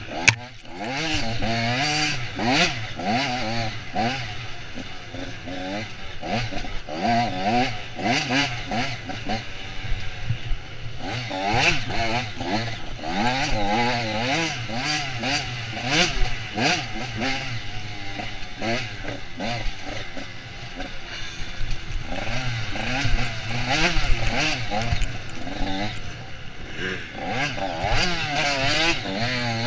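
Off-road dirt bike engine ridden hard, its revs rising and falling again and again as the rider works the throttle. Frequent knocks and rattles from the bike over rough ground are mixed in.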